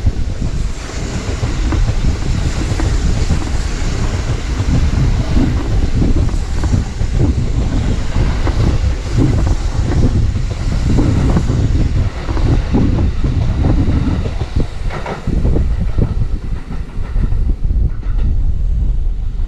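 Kintetsu electric train passing close by: wheels rumbling on the rails with a run of rhythmic clatter over the rail joints. The sound eases off about fifteen seconds in as the last car goes by.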